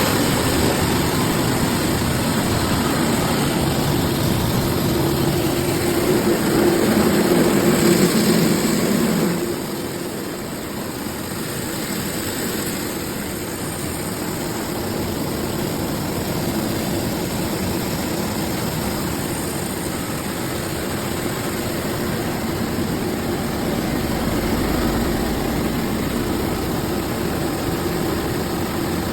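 Rice milling machine with destoner running: a loud, steady mechanical drone with a low hum. It is loudest for the first nine seconds or so, then drops slightly and runs on evenly.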